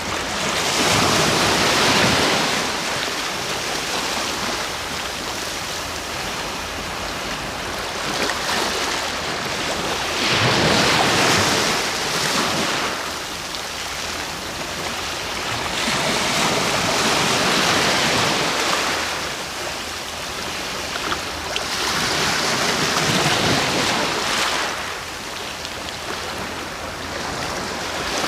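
Sea waves breaking on the shore, each surge of rushing surf swelling and ebbing away roughly every six seconds, with a steady wash between the breaks.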